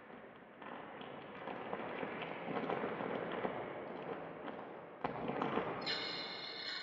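Dense crackling and popping noise that swells louder, with a sudden jump in loudness about five seconds in. Near the end a set of steady high tones comes in and holds over it.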